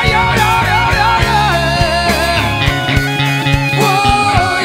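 Rock band playing: an electric guitar line with bending, wavering notes over drums, bass guitar and keyboard.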